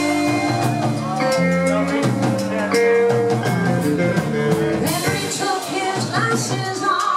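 Live amplified band playing rock, with electric guitar and a drum kit keeping a steady beat, and a woman singing into a microphone.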